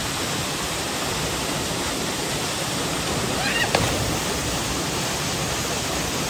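Waterfall pouring, a steady dense rush of water. A faint brief voice and a sharp tap come about three and a half seconds in.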